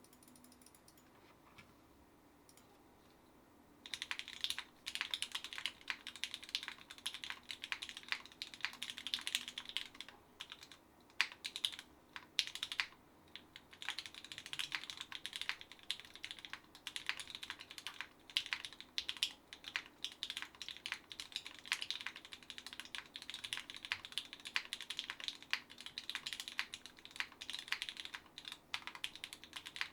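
Typing on a SINGAKBD Kohaku R2 mechanical keyboard with Gateron Fades switches lubed with 205g0, an aluminum plate and GMK Dualshot keycaps. Rapid, continuous keystrokes start about four seconds in, with a few brief pauses.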